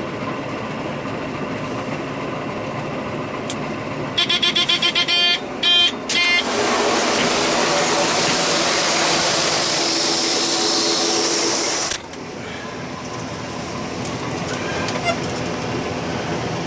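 John Deere 9600 combine humming in the cab, broken about four seconds in by a fast run of electronic beeps from the auger-conveyor warning buzzer, which the operator blames on a faulty sensor, since the elevators are turning as they should. A loud steady rushing noise follows for about five and a half seconds and cuts off suddenly.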